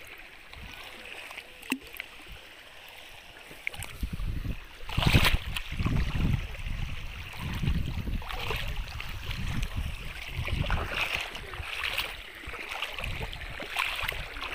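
Shallow seawater sloshing and splashing, with a click a little under two seconds in. It grows louder from about four seconds in, with low rumbling surges and hissy splashes.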